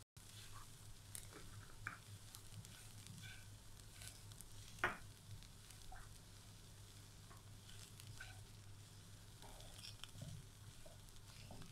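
Faint scraping and clicking of a spatula stirring shredded chicken pizza filling in a wok, with a light sizzle from the low flame. One sharper scrape or knock about five seconds in, over a steady low hum.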